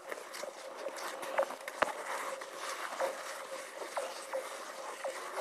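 Ice skate blades scraping and knocking on clear lake ice: a series of short sharp strokes roughly once a second, with one heavier knock about two seconds in.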